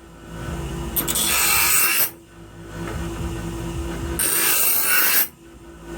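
Steel knife blade being ground from the spine to form a new tip: harsh grinding passes, two loud ones about a second long, with quieter scraping between and brief pauses as the blade is lifted.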